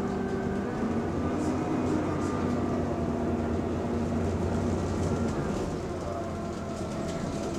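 Double-decker bus on the move, heard from inside the upper deck: a steady engine drone with the whir of its radiator cooling fan, the tones drifting slightly in pitch as the bus's speed changes.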